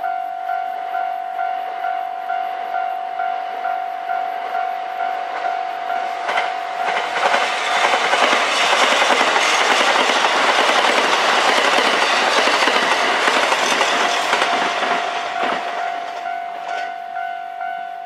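Japanese level-crossing warning bell ringing in a steady, rapid repeated ding, while a six-car KiHa 189 series diesel multiple unit passes: the train's noise builds about six seconds in, is loudest in the middle and drowns the bell, then fades. The bell stops right at the end.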